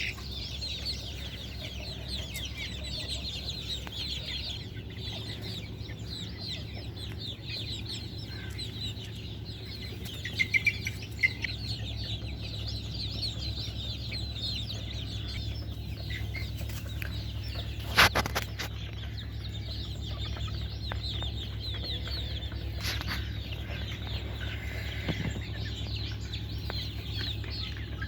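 A flock of chickens clucking and calling continuously over a steady low hum. There are a few clicks about ten seconds in and one sharp knock about two-thirds of the way through.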